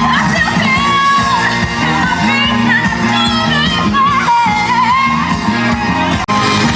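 Upbeat pop-rock song with a singer over a band. It cuts out for an instant near the end.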